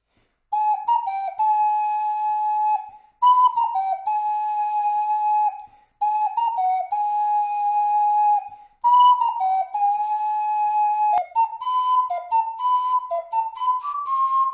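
A 3D-printed PLA ocarina playing a melody. The same short phrase, a few quick notes ending on a long held note, comes three times with brief breaths between. A fourth phrase then runs into quicker notes climbing in pitch near the end.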